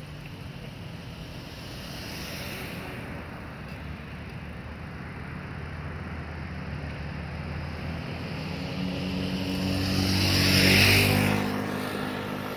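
A motor vehicle engine draws near and passes, its hum building to a peak about ten to eleven seconds in and then easing, over a steady rush of background noise.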